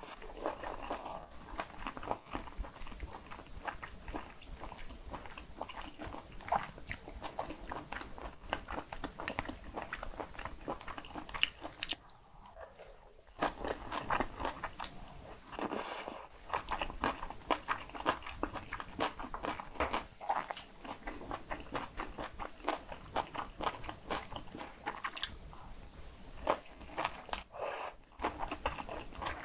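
Close-up chewing and crunching of cockle bibimbap mixed with crisp raw radish salad, in a dense run of small crackly bites with a short pause a little before halfway.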